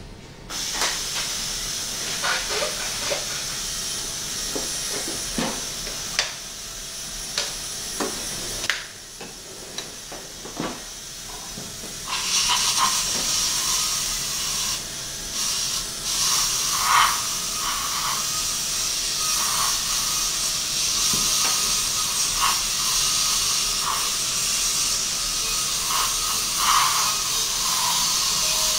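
Dental handpiece spinning a perforated diamond stripping disc against the enamel between two upper incisors: a steady hiss with short sharp scrapes and clicks where the disc touches the teeth. It grows louder and higher about halfway through.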